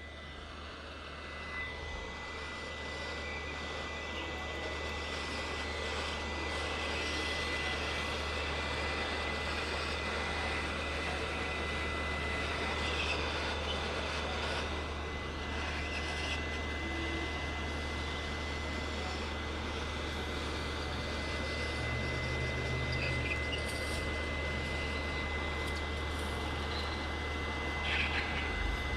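Heat gun blowing hot air: a steady rushing with a thin, constant high whine, building up over the first few seconds. The heat is softening the adhesive under the cracked glass so it can be pried off.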